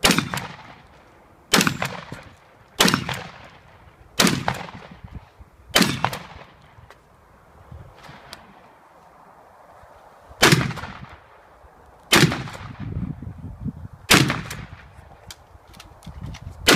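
Shotgun shots fired in a quick string, about one every second and a half, each with a short decaying tail; there is a pause of about four seconds midway before the shots resume.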